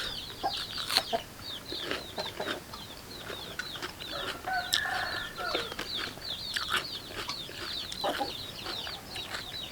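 Chickens and small birds chirping and clucking: a steady run of short, high, falling chirps, several a second, with a few sharp clicks from chewing and crunching food.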